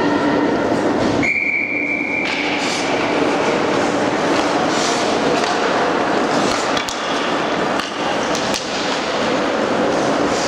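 Ice hockey game sound in an echoing rink: a steady wash of skating and arena noise, broken about a second in by a one-second steady high tone, with a few sharp knocks later on.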